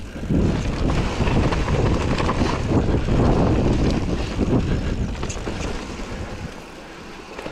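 Wind rushing over the camera microphone and tyres rumbling over a dirt singletrack as a steel hardtail mountain bike rides downhill, with scattered clicks and knocks from the bike. It grows quieter over the last couple of seconds as the bike slows.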